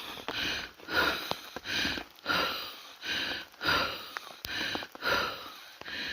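Footsteps on a wet forest trail at a steady walking pace, about three crunching steps every two seconds, with rain falling.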